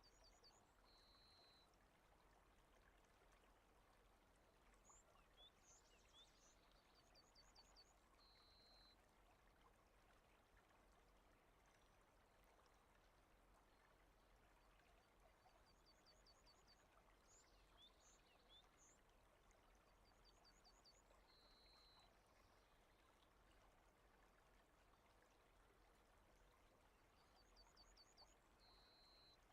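Very faint rain ambience, a steady hiss, with a songbird repeating a short high phrase: a quick run of clipped notes ending on a brief held whistle, heard four times.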